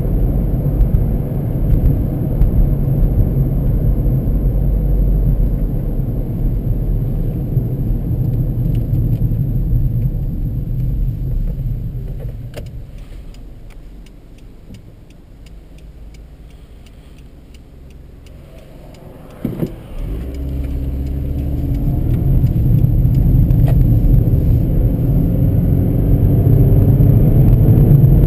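2012 Honda Civic heard from inside the cabin: steady engine and tyre noise at road speed that fades away as the car slows to a stop, several seconds of quiet idle, a single short knock, then the engine rising in pitch as the car pulls away and accelerates.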